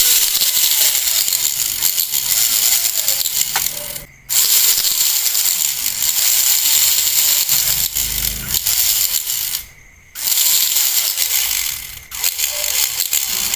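Homemade RC truck's small electric motor and PVC-pipe gearbox running, a dense mechanical rattle that cuts out briefly about four seconds in and again about ten seconds in.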